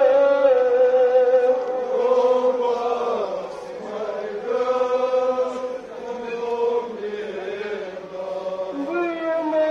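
A man's voice chanting a nouha, the Shia lament for Imam Husayn recited at Ashura, in long held, wavering notes, phrase after phrase.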